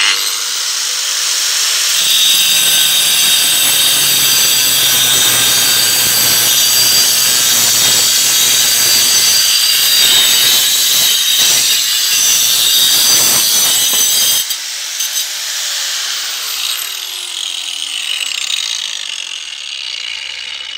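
Makita GA5030R angle grinder with a diamond disc for paving and concrete starts up and cuts through a 4.5 cm piece of concrete with a loud, steady grinding for about twelve seconds, fed by the tool's weight with no pushing. The cut ends about two-thirds of the way in; the disc then runs free and winds down with a falling whine.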